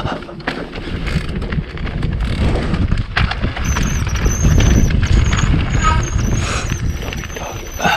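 Mountain bike riding down a dirt trail: steady rumble of tyres, wind and rattling bike parts, with a thin high-pitched squeal joining about halfway through and running on.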